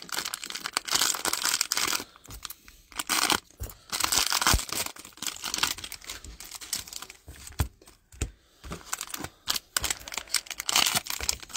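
Plastic wrappers of Panini Mosaic football card packs being torn open and crinkled by hand. The crackly noise comes in stretches broken by short pauses, with a few soft knocks.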